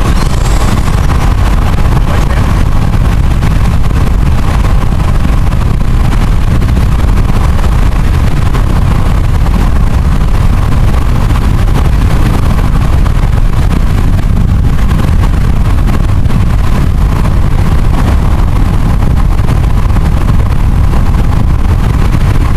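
Steady road and wind noise of a car driving at highway speed, heard from inside the cabin: a loud, even low rumble with a faint steady hum above it.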